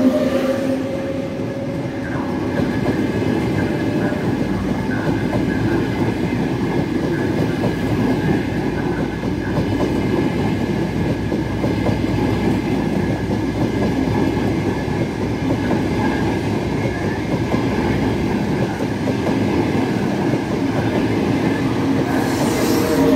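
Trenitalia Frecciarossa high-speed train rolling slowly past the platform: a steady rumble of wheels on rail and running gear, with a faint steady high whine over it.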